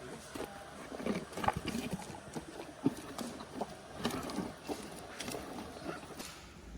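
Hippopotamus close by, chewing its food in irregular crunches and clicks.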